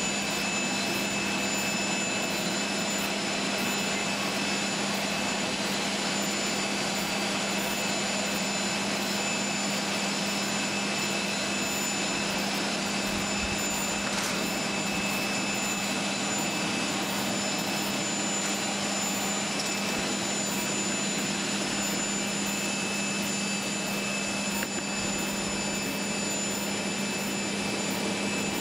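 Steady turbine whine and hum from the parked prototype Boeing 737-100 with its systems powered, while its built-in forward airstair extends under power from the fuselage.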